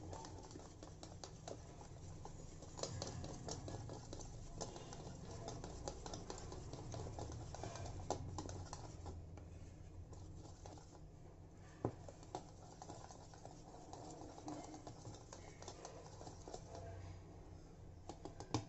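Whisk or spoon stirring frothy dhokla batter, just mixed with cooking soda, in a steel bowl: faint, irregular light clicks and soft scraping, with a sharper tick about twelve seconds in.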